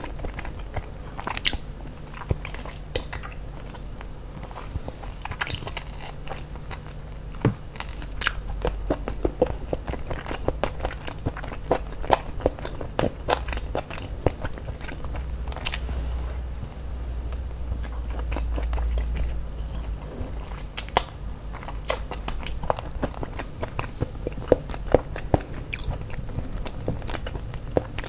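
Close-miked eating of ayam geprek (smashed fried chicken) by hand: bites and chewing, with many small sharp irregular mouth clicks.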